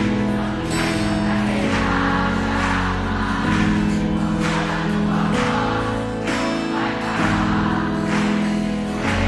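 Worship band playing a slow praise song, with a choir or congregation singing along over sustained chords and a regular beat.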